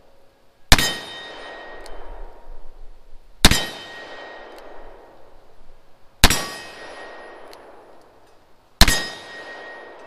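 Four .357 Magnum shots fired from a Taurus Model 66 stainless revolver with a 6-inch barrel, spaced about two and a half to three seconds apart. Each sharp report is followed by a ringing echo that fades over a second or two.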